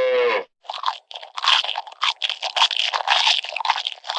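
A cow's moo ends about half a second in. Then comes a quick, irregular run of crunchy chewing sounds, several a second: a cow chewing.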